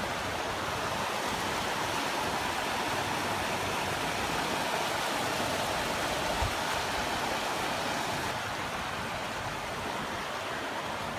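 Steady rush of the Sintok River's flowing water, with a single brief low bump about halfway through.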